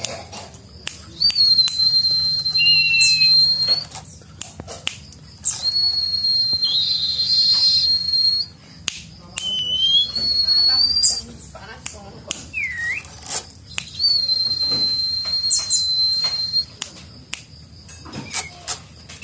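A caged songbird (sirtu) singing in full voice, its song filled in with oriental magpie-robin (kacer) phrases: four long, steady, very high whistles of two to three seconds each, with short sliding chirps and clicks between them.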